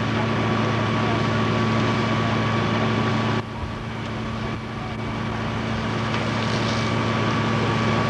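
Fire engine running steadily at pumping speed, feeding the hose lines, over the rushing noise of a large fire. The engine's hum drops out abruptly about three and a half seconds in, leaving the rushing noise.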